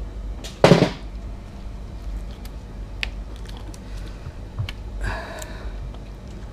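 Gloved hands working a rubber blow-by hose off a Ducati 1199 Panigale engine: small clicks and rubbing, with a louder scuffing knock about half a second in and a short squeaky rub about five seconds in.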